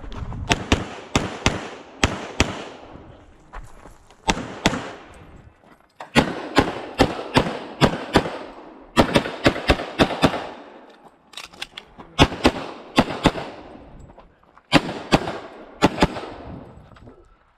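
Semi-automatic pistol fired rapidly on a practical shooting stage: sharp shots mostly in quick pairs, two per target, in several strings of up to about eight shots with brief pauses between them as the shooter moves or reloads.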